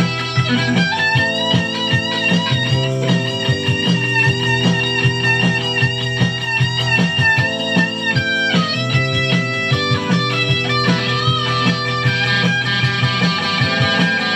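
Electric guitar played along to a recorded track, with held notes that waver over an even, steady beat.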